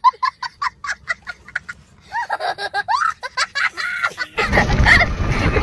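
A small child laughing: a quick run of short high-pitched laughs at about four or five a second, then longer squealing laughs that slide up and down in pitch, ending about four seconds in.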